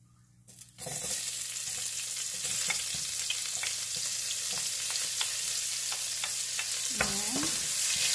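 Diced onions dropped into hot bacon fat in a stainless steel pot, starting to fry with a sudden steady sizzle about a second in. Scattered light clicks come through the sizzle as the onions are stirred.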